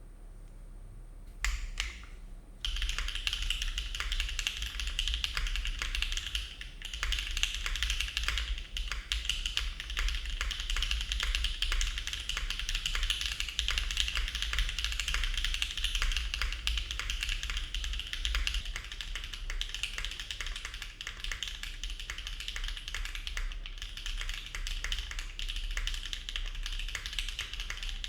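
Typing on a Neo70 mechanical keyboard, gasket-mounted and fitted with HMX Macchiato switches. A couple of separate keystrokes come first, then steady, fast typing from about two and a half seconds in, over a steady low hum.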